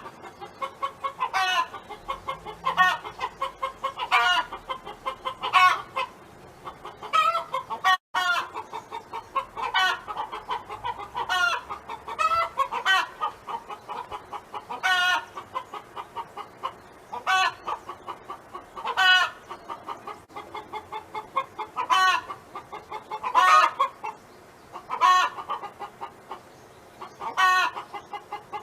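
Domestic hen clucking in a steady run of rapid short clucks, with a louder, longer call breaking in every second or two.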